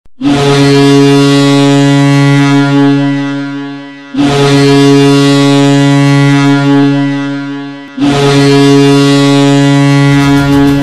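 Ice hockey arena goal horn sounding three long, deep blasts of about four seconds each, each fading at its end. Music starts under the third blast near the end.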